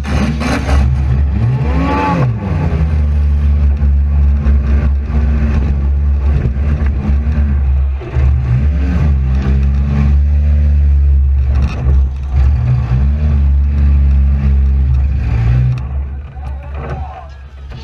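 Front-wheel-drive demolition derby car's engine revving hard, its pitch rising and falling several times over a loud steady rumble, with a few sharp knocks from collisions.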